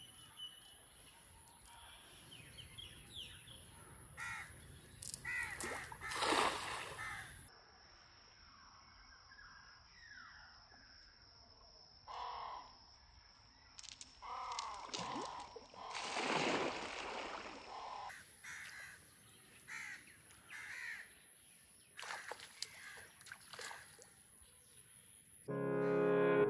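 Crows cawing repeatedly, with louder rustles and splashes as a cast net is thrown into a pond. Music starts near the end.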